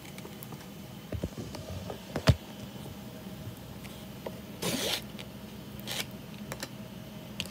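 Handling of a Nongshim cup-noodle bowl: a few light knocks and taps, one sharp tap a little over two seconds in, and a short rustle just before the middle, over a low steady hum.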